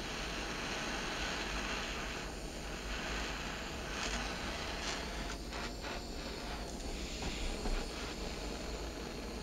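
Handheld gas-cartridge torch burning with a steady hiss as its flame heats an iron tube for soldering. A few short clicks and rustles of handling come between about five and eight seconds in.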